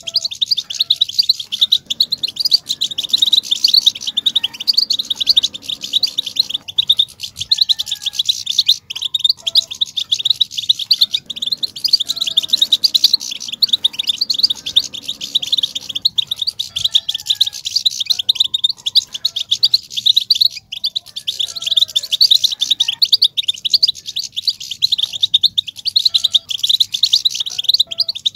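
European goldfinches twittering in a fast, dense, unbroken chatter, the excited twitter that goldfinch keepers call 'batbata' and play to stir male goldfinches into song.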